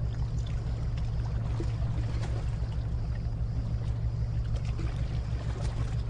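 Marine engine running with a steady low drone, under a continuous rushing hiss of water.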